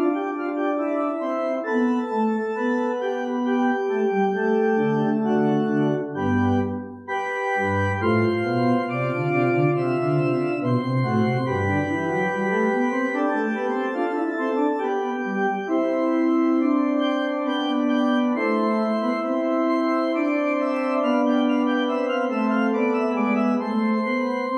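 Organ music, slow sustained chords held and changing, with deep bass notes coming in for several seconds in the middle.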